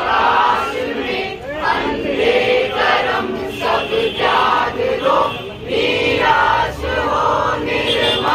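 A group of men and women chanting together in unison, in short repeated phrases.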